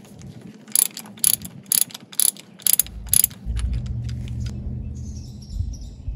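Socket ratchet clicking as a 13/16 deep socket backs a spark plug out of the cylinder head: about seven sharp clicks over roughly two and a half seconds. A low rumble follows.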